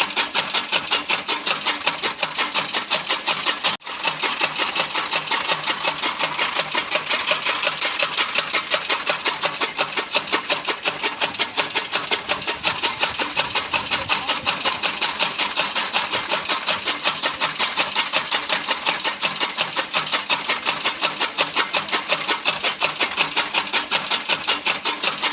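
Fodder cutting machine (chaff cutter) running steadily, with an even rapid pulse of about four beats a second and a brief dropout about four seconds in.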